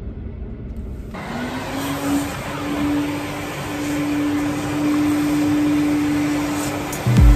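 Car-wash vacuum cleaner switching on about a second in and running, a steady whine over a rush of air as it sucks out a car's interior. Music starts at the very end.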